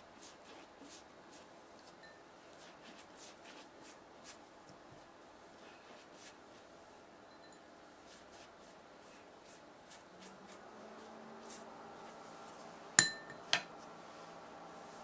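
Silicone pastry brush dabbing and stroking beaten egg onto a strip of puff pastry, a faint run of soft taps and brushing. Near the end two sharp clinks come about half a second apart, and a low steady hum sets in a few seconds before them.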